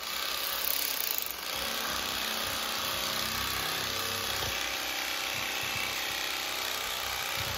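Bubba Blade electric fillet knife switched on right at the start and running steadily, its motor and reciprocating blades buzzing as they cut through a crappie along the backbone.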